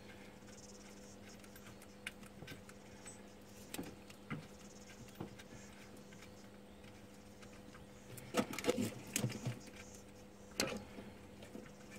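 Scattered metal clicks and rattles as an alternator and its mounting bolts are handled and the bolts are started by hand. A louder cluster of clattering comes about eight to nine and a half seconds in, and another rattle near the end, over a faint steady hum.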